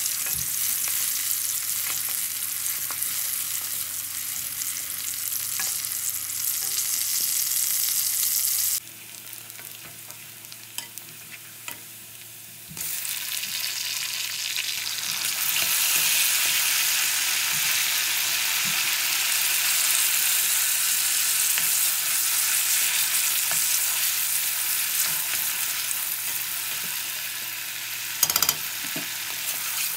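Chopped onions sizzling as they fry in hot oil in a metal pot, stirred with a wooden spoon. The sizzle drops low about nine seconds in and comes back louder some four seconds later. There is a brief loud knock near the end.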